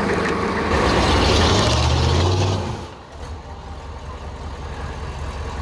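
Rock buggy engine at high throttle, its pitch rising with tires spinning on wet rock, then the throttle cuts and the sound drops away suddenly about two and a half seconds in. A lower, steady engine idle carries on after that.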